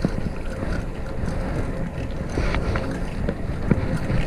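Wind rumbling on the microphone of a camera on a moving bicycle, with the steady road noise of riding, and a few short clicks or knocks.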